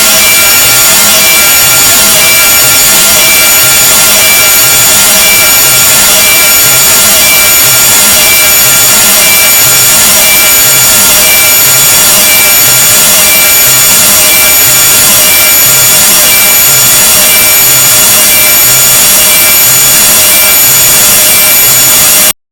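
Deliberately grating noise sound effect, very loud: a dense harsh hiss laced with many shrill steady tones over a low pulse that repeats about every two-thirds of a second. It cuts off abruptly near the end.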